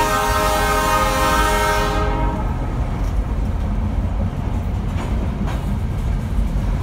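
Diesel locomotive's air horn sounding a steady multi-note chord that stops about two seconds in, followed by a freight train rolling past with a steady low rumble and a few clacks of wheels over rail joints.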